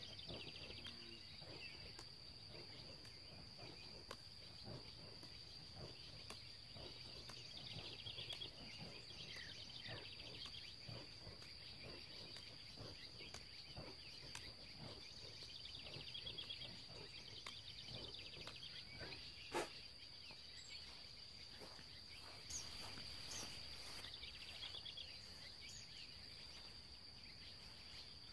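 Faint field ambience: insects keep up a steady high chirring, with repeated pulsed trills coming and going. A single sharp click sounds about two-thirds of the way through.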